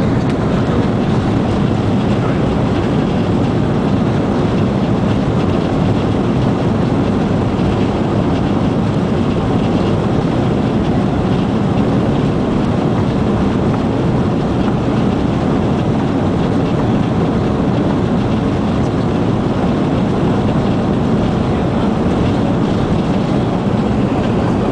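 Steady, loud rumble inside a jet airliner's cabin as it rolls along the runway: engine noise and wheel rumble heard from a window seat over the wing.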